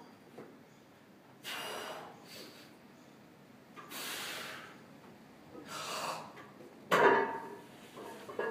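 A lifter's heavy, forceful breathing while bracing for a heavy barbell deadlift: sharp breaths in and out through nose and mouth, roughly every one and a half to two seconds. A louder, sudden burst comes about seven seconds in as the bar comes off the floor.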